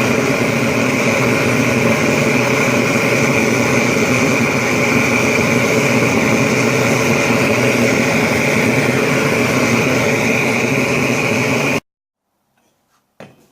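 A small high-speed motor running steadily with a high whine, starting and stopping abruptly.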